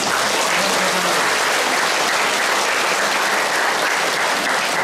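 Congregation applauding: steady, dense clapping from a large crowd that starts suddenly.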